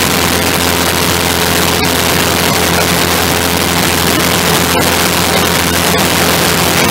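The engine of a small wing-in-ground-effect craft running steadily at speed over the sea: a constant engine drone under a loud rush of air.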